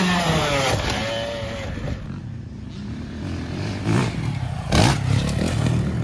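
Motocross bike engine revving over a jump, its note falling over the first second or so. After that, the engine is quieter and rougher, swelling again with throttle blips about four and five seconds in.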